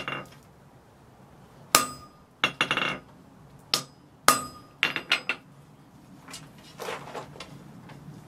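Hand hammer striking a slot punch to drive a slot through a hot steel bar on an anvil. About ten sharp metallic blows, some with a short ring, come at uneven intervals of roughly half a second to a second, with a quick cluster near three seconds. The blows stop a little after five seconds in, leaving only a few faint knocks.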